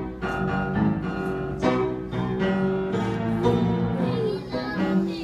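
Live piano playing a tune, chords struck to a steady beat.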